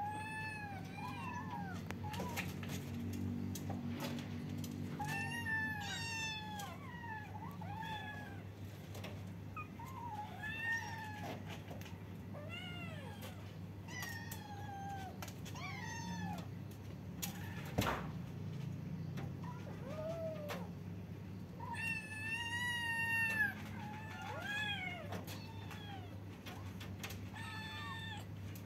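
Several kittens meowing again and again, short high meows that rise and fall, often overlapping, thickest about three-quarters of the way through. A steady low hum runs underneath, and there is one sharp click just past the middle.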